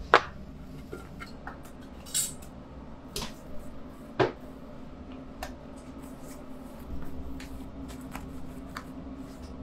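Bakery work noise: a few separate clinks and knocks of tools and pans, the loudest two near the start and about four seconds in, with a short hiss about two seconds in, over a steady low hum.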